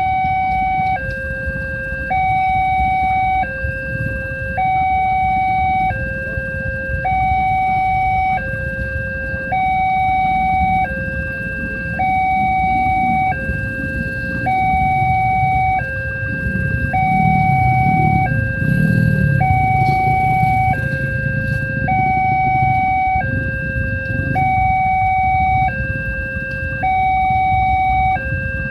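Railway level-crossing warning alarm sounding a steady two-tone electronic signal, a high and a low tone alternating about every 1.2 seconds, which signals that a train is approaching. A low rumble swells under it in the middle.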